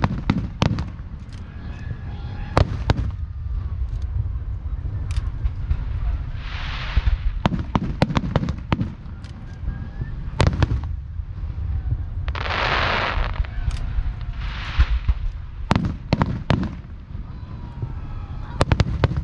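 Aerial fireworks display: shells bursting with sharp bangs at irregular intervals over a steady low rumble. Spells of crackling hiss from burst effects come about 7, 13 and 15 seconds in.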